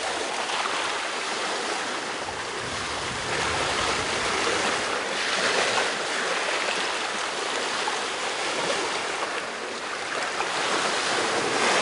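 Steady rushing of sea water and waves, swelling and easing, a little louder near the end.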